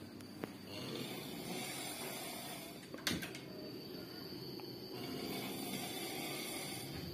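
A single sharp knock about three seconds in, over steady low background noise, with a couple of faint clicks near the start.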